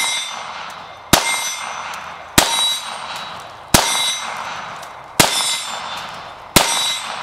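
Five 9mm shots from a Glock 19 Gen 4 pistol, fired slowly about one every 1.3 seconds. Each shot is followed by a clear, fading ring from the steel target plate it hits.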